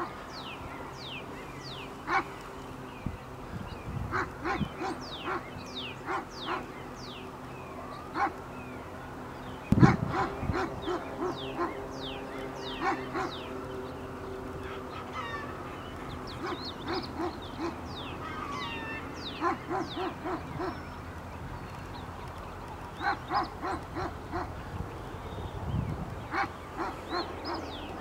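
Dogs barking in short runs of three or four barks, again and again, while birds chirp in quick falling notes. A steady low hum lies underneath, and there is one loud thump about ten seconds in.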